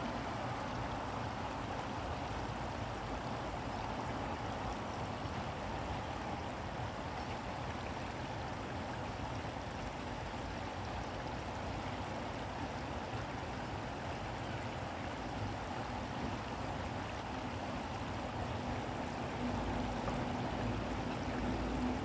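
Shallow stream flowing over a stony bed, a steady rush of water. A low rumble with a faint hum joins near the end.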